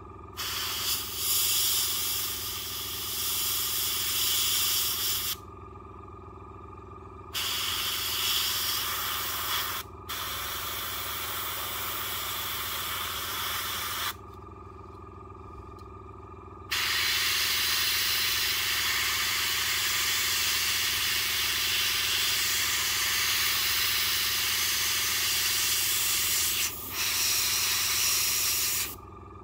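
Fengda airbrush spraying paint, a steady hiss of air that comes in several long bursts of a few seconds each, stopping and starting as the trigger is released and pressed again. A steady low hum runs underneath throughout.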